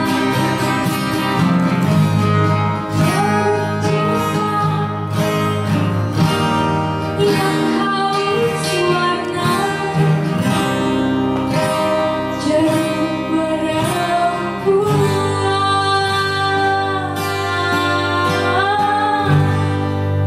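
Live acoustic band: strummed acoustic guitars over a bass guitar line, with a woman singing the melody.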